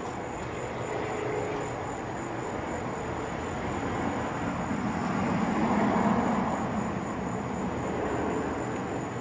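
Steady low background rumble that swells and fades again about six seconds in, with a faint steady high-pitched tone throughout.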